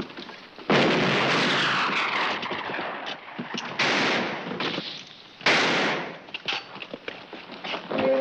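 Three gunshots, about a second in, near four seconds and about five and a half seconds in, each trailing off in a long fading echo.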